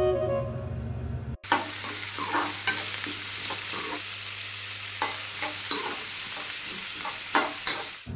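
Food sizzling in a frying pan with a steady hiss, broken by scattered clinks and scrapes of stirring in the pan. Background music cuts off abruptly about a second and a half in, where the sizzling begins.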